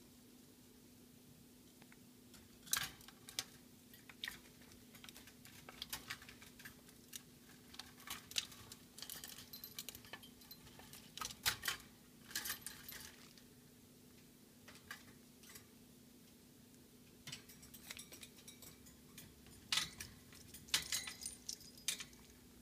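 Black-capped lory moving about a wire cage: irregular clusters of sharp clicks and metallic clinks from its beak and feet on the bars, perches, hanging toys and water dish.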